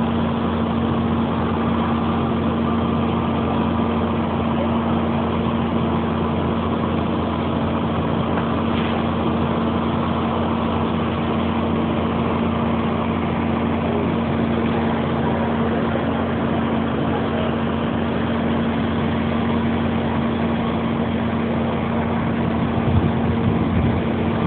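A heavy engine running at a steady speed: a constant drone with a strong steady hum, unchanging throughout.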